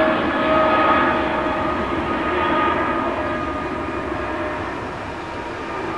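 Boeing 777-200ER's twin turbofan engines at climb power just after takeoff: a steady jet roar with a faint whining tone in it, slowly fading as the airliner climbs away.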